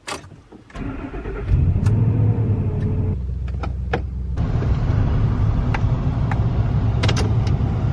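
An engine cranking and catching about a second in, then running steadily with a low rumble.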